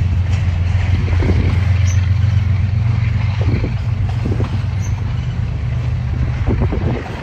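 Freight train rolling past: a steady low rumble of cars on the rails, with a few short bouts of clatter.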